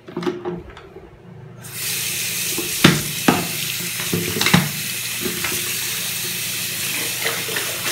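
Water tap turned on and running into a plastic electric kettle in a sink, a steady splashing hiss that starts about two seconds in. Before it come a few clicks as the kettle lid is handled, and while it runs there are a few sharp knocks as the kettle is moved about under the tap.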